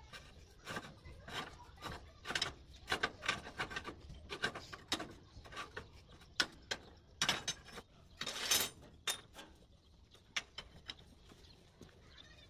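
Steel window bar knocking and clinking against a hand bending jig and the steel table top as it is bent with a lever and handled, in irregular taps. Two longer scrapes of metal dragging on metal come a little after halfway.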